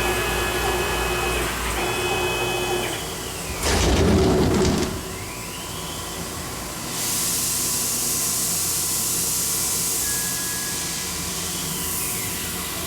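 Tormach Slant-Pro CNC lathe running a cut on a 1045 steel cone: steady motor whine with rising and falling pitch glides. There is a louder, noisy rush about four seconds in and a steady hiss from about seven seconds on.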